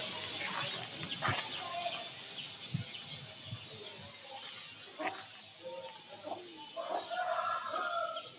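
Country chickens clucking in short, wavering calls, busiest in the second half, with a few sharp knocks.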